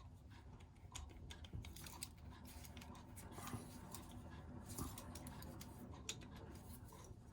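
Loose metal keys being handled and sorted while looking for one to fit a vintage padlock: faint, irregular small clicks and chinks.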